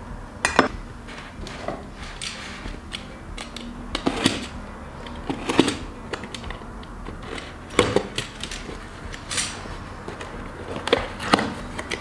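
Utility knife slicing the packing tape on a cardboard box. Scattered sharp scrapes and knocks come from the box being handled and its flaps opened.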